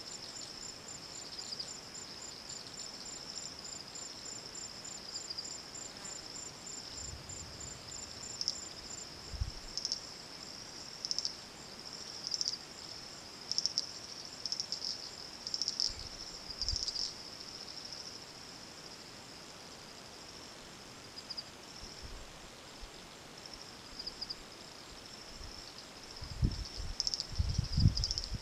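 Insects chirring in the bush: a steady high-pitched buzz that swells and fades in short pulses. Near the end a few low thumps come through, louder than the insects.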